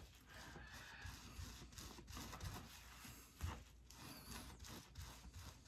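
Faint rubbing of a cloth towel wiping sticky adhesive residue across the base of a skin-system hairpiece, in short repeated strokes, with a soft bump about three and a half seconds in.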